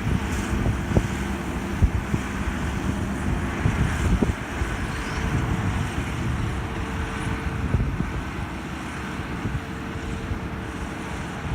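Kubota 128-horsepower six-row combine harvester running steadily, a dense low machine drone with a steady hum that fades out about eight seconds in. A few knocks come through in the first half.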